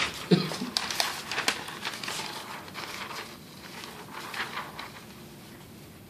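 Sheets of paper being laid over an inked etching plate on the bed of a printing press and smoothed down by hand: soft rustling and crinkling, with a few sharp clicks in the first second and a half, growing quieter toward the end.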